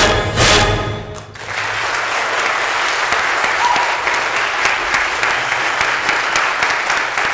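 Background music that stops about a second in, followed by a steady patter of clapping, like applause.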